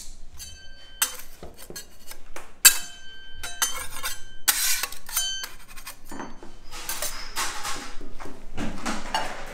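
Metal candy-making utensils clinking with short rings, then a longer run of scraping and rustling from about four seconds in, as citric acid and white coloring are added to the hot candy batch.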